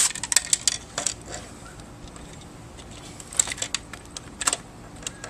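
Scattered sharp clicks and light taps of small metal and plastic parts being handled while unscrewing a garage door opener: a cluster in the first second and a few more a little past the middle.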